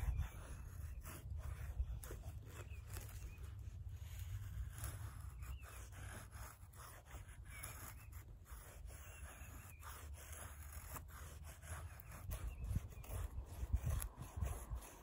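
Myerchin rigging knife shaving thin curls down a wooden stick, a series of short scraping strokes as a feather stick is carved, under a low steady rumble.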